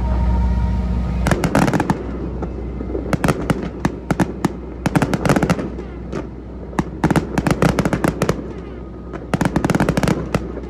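Aerial fireworks crackling: rapid clusters of sharp pops and cracks in irregular bursts, starting about a second in.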